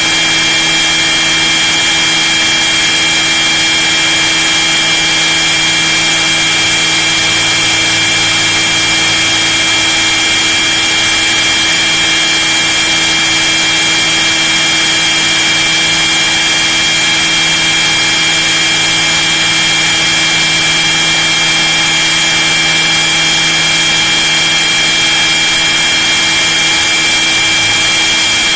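RC model helicopter running in flight, its motor and rotor drive giving a loud, steady high-pitched whine with a constant pitch, heard from inside the fuselage.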